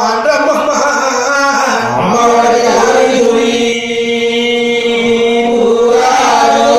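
Voices chanting Hindu mantras together, holding long notes over an unbroken steady tone.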